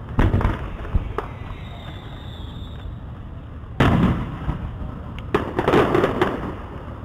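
Aerial fireworks shells bursting: a few bangs in the first second and a half, a heavy boom near four seconds, then a quick run of bangs and crackling pops a second or so later.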